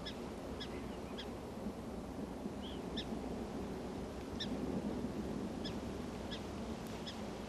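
Faint, short high chirps now and then, about nine in all at irregular spacing, over a steady outdoor hiss.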